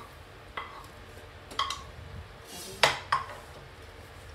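Cookware clinking as a non-stick pan and spatula knock against a steel plate while the cooked barfi mixture is scraped out onto it: four short clinks, the loudest nearly three seconds in.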